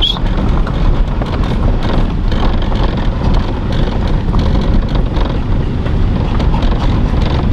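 Vehicle driving on a rough dirt road: a steady rumble of tyres and engine with many small rattles and knocks.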